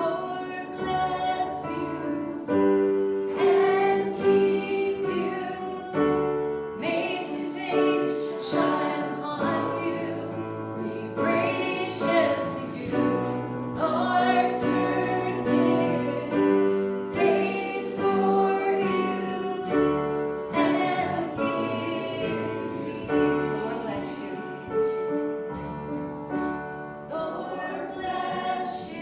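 A group of voices singing a gospel hymn together with piano accompaniment, the held notes moving at an even, unhurried pace.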